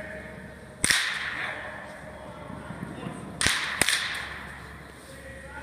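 Baseball bat cracking against pitched balls in an indoor batting cage: one sharp crack about a second in, then two more close together about three and a half seconds in, each echoing in the large hall.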